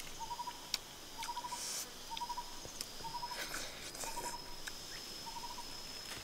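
A bird's short trilled call, a quick run of four or five notes repeated about once a second, over a thin, steady, high insect whine that comes in about three seconds in.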